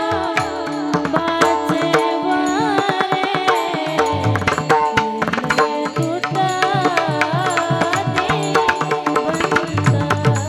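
Varkari kirtan tune played on a hand drum like a tabla, with a quick, steady rhythm of strokes under a sustained melody line.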